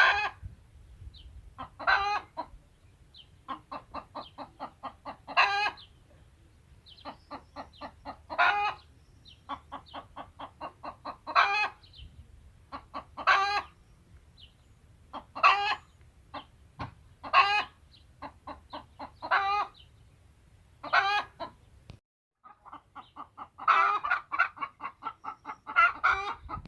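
Hen cackling: runs of quick clucks, each run ending in a loud squawk, repeating every two to three seconds, with a denser flurry of calls near the end.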